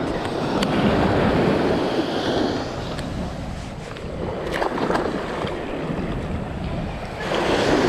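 Small surf waves breaking and washing up onto the sand, the wash swelling about a second in and again near the end, with wind rumbling on the microphone.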